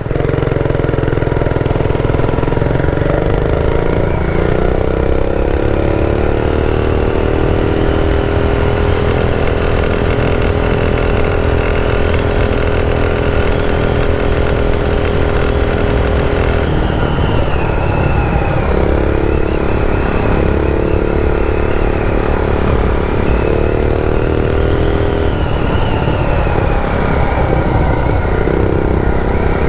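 Predator 212 single-cylinder four-stroke engine on a minibike running at full throttle. Its pitch rises over the first several seconds, then holds steady as the stock, still-governed engine tops out. About two-thirds of the way in the pitch drops, and the engine runs at a few different steady speeds in turn.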